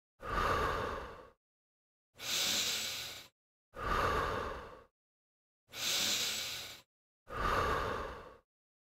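A man breathing in and out through the mouth: five deep, audible breaths of about a second each with pauses between, marking the breathing rhythm of each calf raise.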